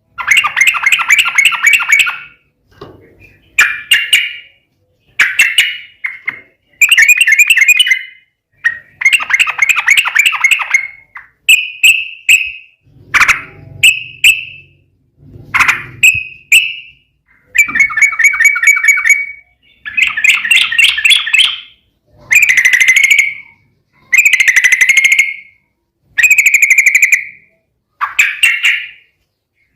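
Yellow-vented bulbul (trucukan) giving loud, rapid chattering song phrases in a fighting style, a song used to provoke other bulbuls into answering. The bursts come about every two seconds, each lasting one to two seconds, with short pauses between.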